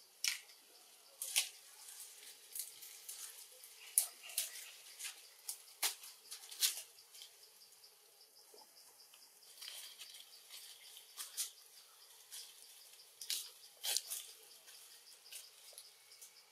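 Scattered sharp clicks and ticks at irregular intervals over a faint, steady forest hiss.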